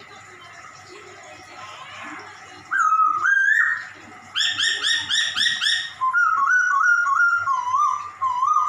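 Poksay Hongkong songbird singing: loud whistled notes, then a quick run of about six identical call notes, then a string of warbling whistles.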